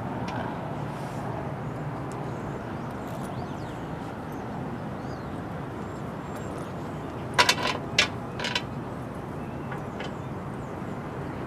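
Steady outdoor background noise, with a quick cluster of four or five sharp clicks or knocks about seven and a half seconds in.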